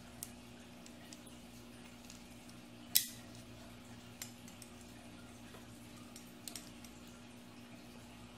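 Small metal clicks of a flathead screwdriver and clutch parts as the clutch shoes and springs are pried off a Kyosho KE25 nitro engine's flywheel, with one sharper click about three seconds in.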